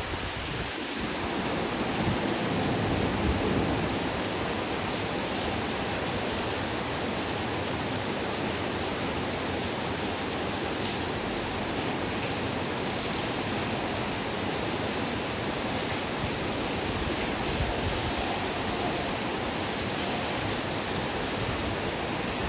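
Heavy rain falling steadily: a dense, even hiss of rain, with a little low gusting near the start.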